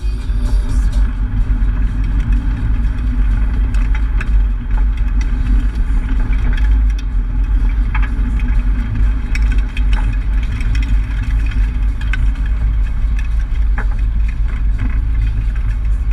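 Nissan 240SX (S14) engine heard from inside the cabin, running steadily at low revs as the car rolls slowly, a continuous low rumble with occasional short clicks and rattles.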